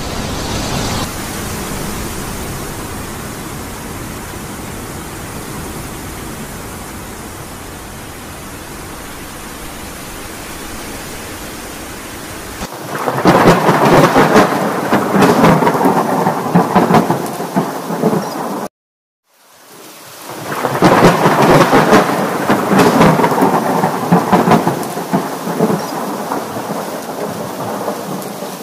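Thunderstorm: steady heavy rain, then a long loud roll of thunder about halfway through that cuts off abruptly. A second roll of thunder follows and fades away over several seconds.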